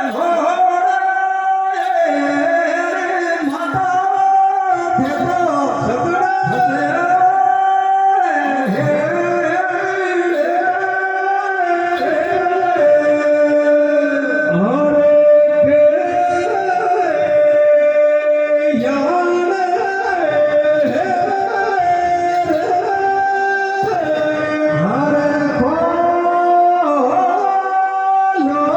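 A male folk singer singing a Tejaji devotional song (Teja gayan) in a sliding, ornamented style with musical accompaniment, holding one long note about halfway through.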